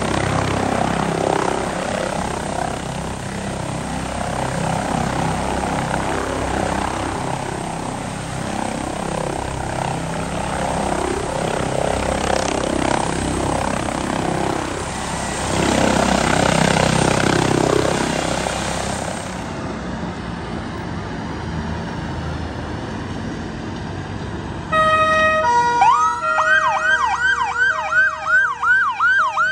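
Airbus H145 air ambulance helicopter hovering and descending low, its rotor and turbine engines running steadily and growing louder for a few seconds. Near the end, after a quieter stretch, fire engine sirens start: a two-tone horn, then a fast rising-and-falling yelp at about two to three sweeps a second.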